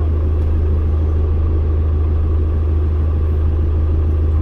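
Steady low engine-and-road rumble inside the cabin of a kindergarten shuttle vehicle on its route, an even drone with no changes.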